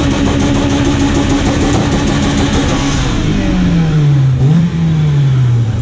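A car doing a burnout: the engine is revved high and held for about three seconds over a loud hiss of spinning tyres, then the revs fall away in two steps.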